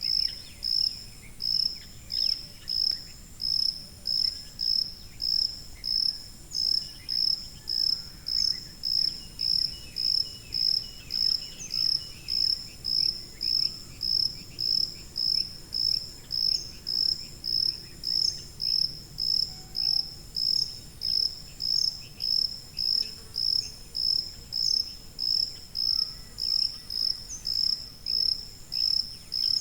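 Cricket chirping in an even, unbroken rhythm, about three high-pitched chirps every two seconds.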